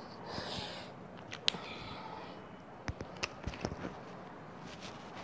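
Felt-tip marker handled and stroked on paper: soft scratching, a sharp click about one and a half seconds in, and a few lighter clicks about three seconds in.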